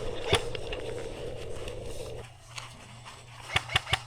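Sharp snaps of airsoft guns firing: one about a third of a second in, then a quick run of three about three and a half seconds in. Under them runs a steady hum that cuts out about two seconds in.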